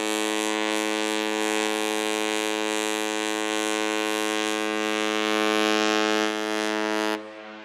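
Cruise ship's horn sounding one long, steady blast that cuts off suddenly about seven seconds in.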